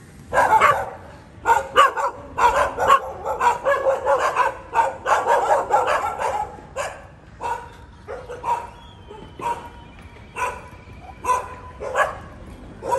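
Dogs barking: a fast, dense run of barks for the first several seconds, thinning to single barks about once a second.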